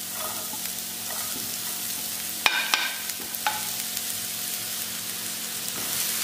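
Diced onions sizzling as they go into hot oil in a nonstick frying pan, with a wooden spatula scraping and stirring them. A few sharp taps come about halfway through.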